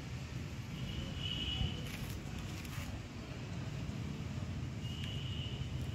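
Outdoor ambience: a steady low rumble with two faint, brief high-pitched tones, one about a second in and one near the end.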